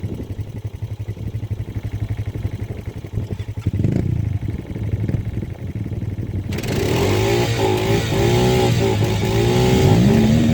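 Small off-road vehicle engine running at a low, fast putter, then revving about six seconds in as a louder rush of noise comes in, its pitch rising and falling with the throttle and climbing again near the end.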